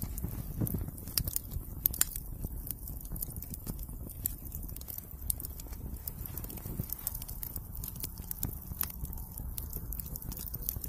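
Small fire at the edge of a wooden board, crackling with scattered sharp clicks over a steady low rumble.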